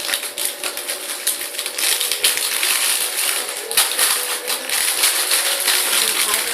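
Plastic packaging crinkling and crackling as a bread-shaped squishy is squeezed inside its bag, a dense run of small crackles.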